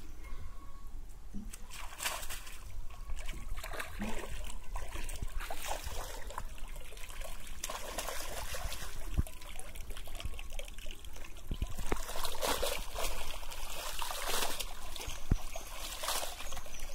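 Pond water splashing and sloshing as a cast net is hauled in by hand through the shallows, with water streaming and dripping off the net as it is lifted. The splashes come irregularly and are heaviest in the second half.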